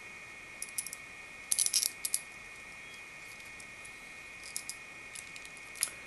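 Small metal clicks and clinks of a screw and spacer being handled and fitted onto a steel CPU-cooler mounting bracket, in scattered groups: a few early, a quick flurry about one and a half to two seconds in, and a few more near the end. A steady faint high-pitched hum runs underneath.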